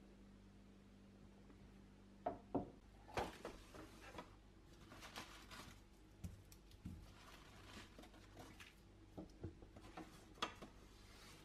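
Quiet handling sounds on a kitchen counter: scattered light taps and knocks as vegetables and a wicker basket are picked up and set down, over faint room tone.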